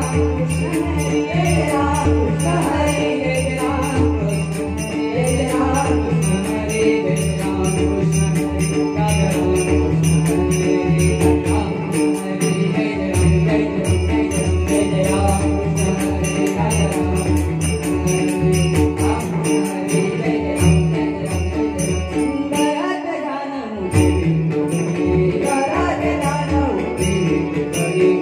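Marathi devotional bhajan: men's voices singing together over a harmonium drone, with a pakhawaj barrel drum and small hand cymbals keeping a steady beat. Near the end the drum briefly drops out.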